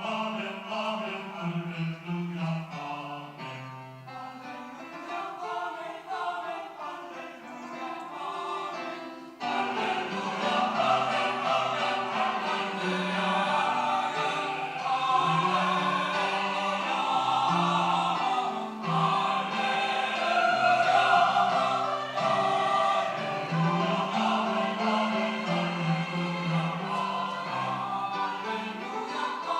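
Church choir singing a sacred choral piece. About nine seconds in, the singing swells suddenly fuller and louder and stays that way.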